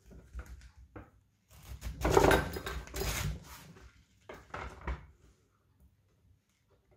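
Kitchen knife cutting into a red cabbage on a cutting board to remove the core: crunching cuts and knocks of the blade on the board, the longest and loudest run of them from about one and a half to three and a half seconds in, then a shorter one near five seconds.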